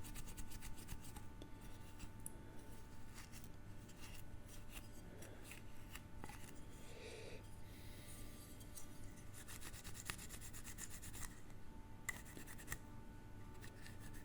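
Faint rubbing and scratching of a cleaning wipe over a small toy car, with small scattered clicks as it is handled.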